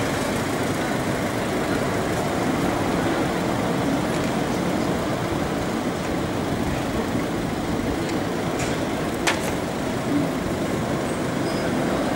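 Steady street traffic noise from a Tatra T3 tram and cars pulling away along a cobbled street, with a single sharp click about nine seconds in.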